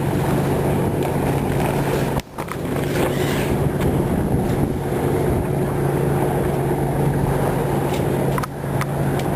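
Boat engine running steadily with a constant low hum, with wind and water noise around it. The sound drops out briefly about two seconds in.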